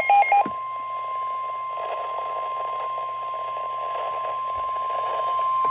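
NOAA Weather Radio warning alarm tone: a single steady high tone, heard through a radio receiver with static and hum, sounding ahead of a severe thunderstorm warning. A rapid pulsing beep stops about half a second in.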